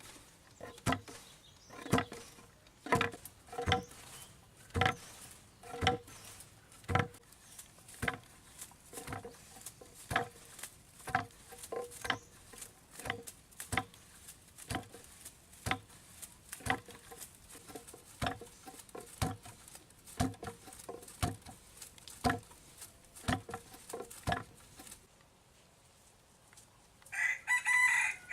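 A hen clucking steadily, about one short cluck a second, then a rooster crowing once near the end.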